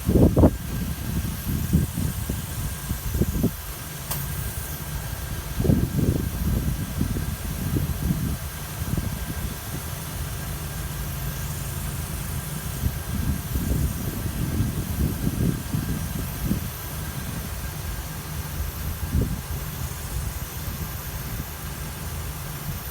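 Renault Kaptur engine idling with a thin, steady high whistle running through it, the whistle at idle that the owner is recording. Uneven low rumbling sits under it.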